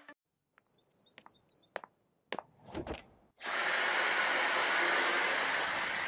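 A few short high chirps and clicks. About three and a half seconds in, a Dyson V8 cordless stick vacuum starts running with a steady rush of air and a thin high whine.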